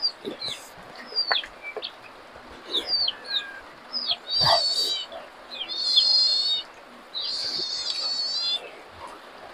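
Birds calling: many quick falling chirps and several longer, high, even-pitched calls, the last held for over a second near the end. Wet smacks and chewing from eating by hand come in between, loudest about halfway through.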